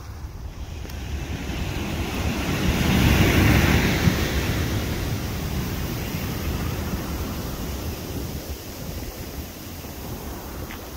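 Small ocean surf breaking at the shoreline and washing up over the sand in a wash of foam, swelling to its loudest about three to four seconds in and then slowly fading.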